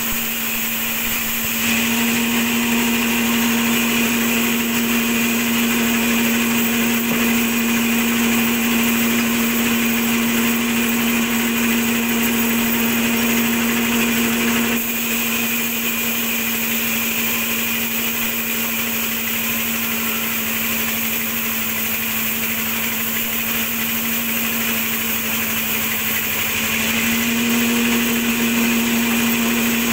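Sawmill band saw running and cutting through timber as logs are fed across its table. A strong steady hum comes in about two seconds in, falls away about halfway through, and returns near the end.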